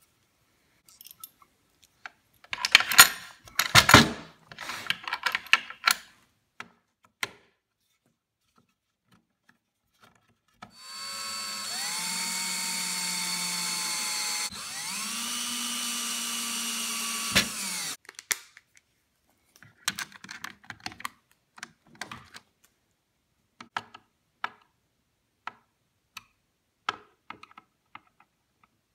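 Small metal hardware clattering and being handled, loudest a few seconds in. Then a cordless drill runs twice for about three and a half seconds each, driving screws through metal hardware into a wooden board, its whine rising as it spins up and then holding steady. Scattered light clicks and ticks follow.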